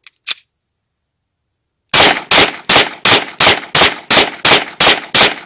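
Two short clicks, then about two seconds in a 9mm Beretta 92FS-pattern pistol (a Pakistani-made A-plus copy) starts rapid semi-automatic fire. The shots come evenly at about three a second, around ten of them, each with a short ringing tail.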